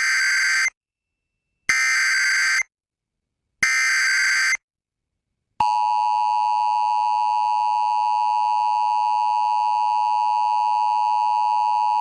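Emergency Alert System activation on an FM radio station. First come the SAME header data bursts: raspy digital buzzes about a second long, each followed by a second of silence. About five and a half seconds in, the steady two-tone EAS attention signal starts, announcing a Flash Flood Warning.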